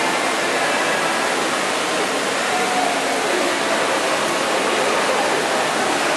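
Steady rushing background noise of a shopping-mall atrium, with faint voices mixed in.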